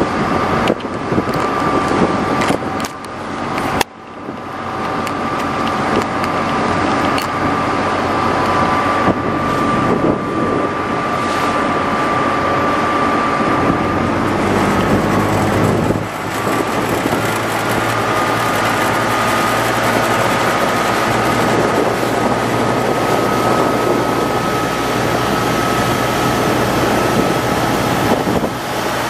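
Small fishing boat's engine running steadily at cruising speed, with a steady whine over the rush of water along the hull and wind on the microphone.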